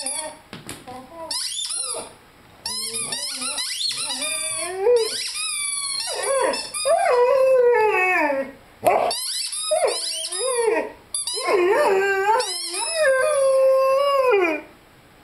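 Rubber squeaky chicken toy squeaked over and over in quick runs as a Rhodesian Ridgeback puppy chews it. From about halfway through, the puppy howls along in long howls that rise and fall, with a few more squeaks mixed in, the longest howl held near the end.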